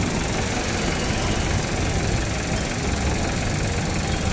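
Engine of a Force Motors jeep running at a slow crawl: a steady low rumble with no distinct events.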